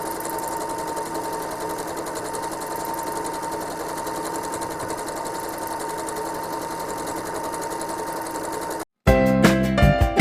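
Home sewing machine running steadily while free-motion quilting, with a thin steady whine over the stitching. It cuts off abruptly near the end and upbeat plucked-string music begins.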